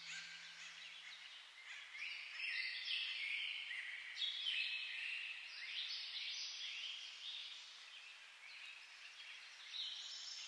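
Many small birds chirping and twittering together in a dense chorus of short, overlapping, high falling calls.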